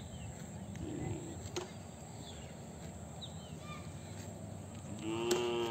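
Open-air background with short high chirps here and there. About five seconds in, a cow starts a loud, drawn-out moo.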